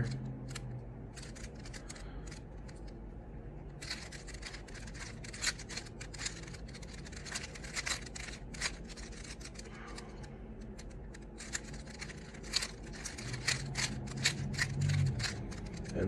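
A loose, well-lubricated 3x3 Rubik's Cube being turned by hand, its plastic layers clicking in quick runs of turns separated by short pauses.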